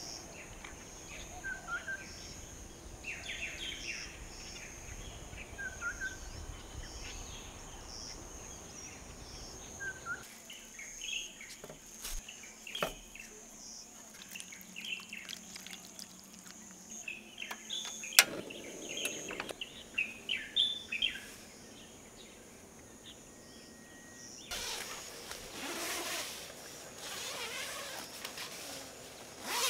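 Birds chirping in short, scattered calls over a steady high insect drone. There is a sharp knock about two-thirds of the way through and a few seconds of rustling noise near the end.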